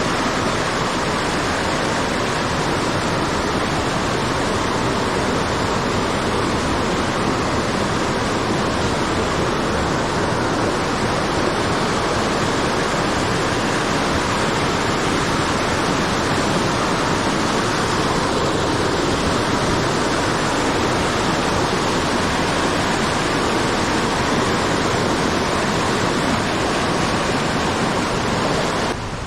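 Steady, loud rush of fast-flowing water, an even roar with no breaks, cutting off suddenly near the end.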